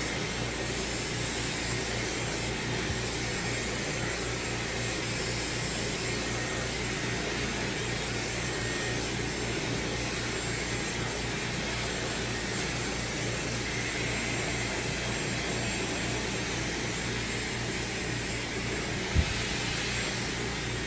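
Dyson hair dryer running steadily, an even rush of blowing air. A single short knock sounds near the end.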